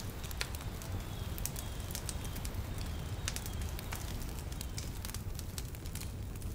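Wood fire crackling: irregular sharp cracks over a steady low rumble.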